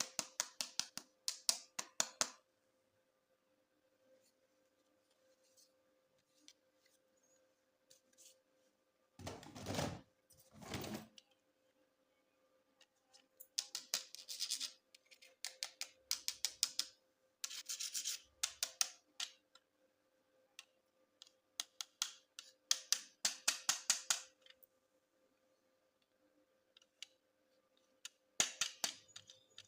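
Bursts of rapid, scratchy clicking, about five separate runs, with a softer rustling thump about nine seconds in, typical of toy packaging being handled.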